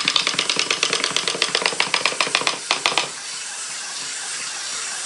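Fast, even rattling clicks, about eight a second, that stop about three seconds in, followed by a steady hiss.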